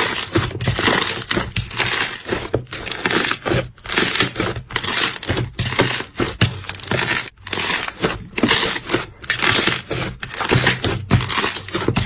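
Hands squeezing and pressing slime, making repeated squishing, crackling sounds in bursts with short breaks between them.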